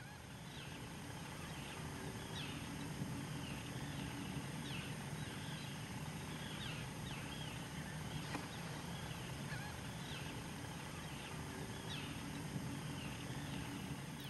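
Marbled godwits calling: short calls repeated irregularly, about one or two a second, some rising and some falling in pitch, over a steady low background rush.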